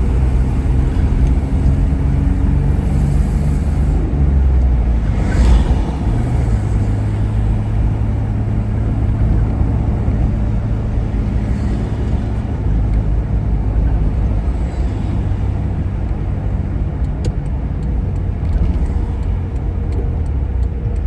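Car driving, its engine hum and road noise heard from inside the cabin. The engine note shifts a few seconds in, with a brief louder sweep of noise about five seconds in.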